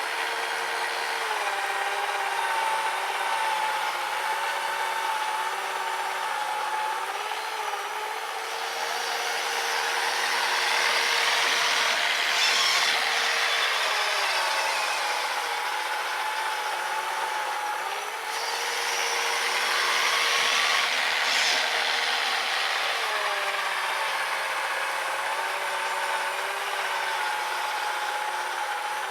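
Whine of the RC snowblower's brushed 550 electric motor working through powder snow. Its pitch dips and recovers now and then, and it rises into two longer rushes of louder hiss, about a third and about two-thirds of the way in.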